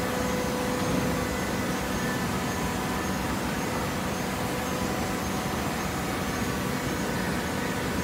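Automatic horizontal hydraulic baler running: a steady mechanical noise from its motor and hydraulic pump, with a faint steady whine over it.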